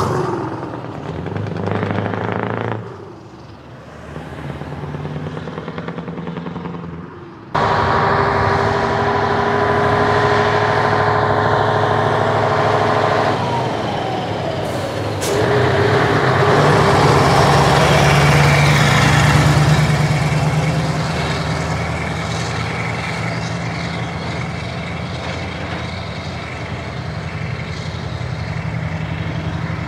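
Heavy truck diesel engines running loud as the trucks drive past. The sound jumps suddenly louder about a quarter of the way through, and one engine's pitch sweeps down near the middle.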